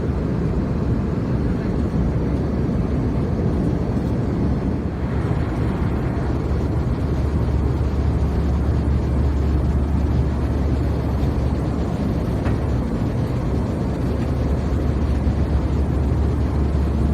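Airbus A321-200 cabin noise in cruise flight: a steady rush of air and engine drone, with a low hum that grows stronger about halfway through.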